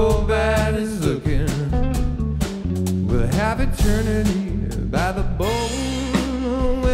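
Live funk band playing, with a sung vocal line over drum kit and electric guitar.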